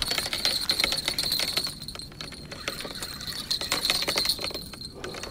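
Spinning reel clicking rapidly as a hooked carp is played on the line.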